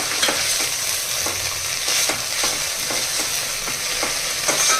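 Chopped coriander and curry leaves sizzling in hot oil while a ladle stirs them, scraping and knocking against the pan every half second or so.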